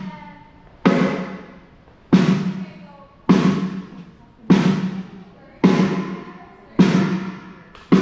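Snare drum struck one hit at a time, about once every 1.2 seconds, each crack ringing down before the next. This is a drummer giving the engineer the snare on its own for a line check during a sound check.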